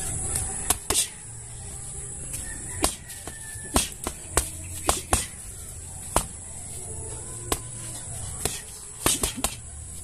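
Boxing gloves punching a homemade hanging punching bag: about a dozen sharp smacks at irregular intervals, with a quick flurry of three about nine seconds in.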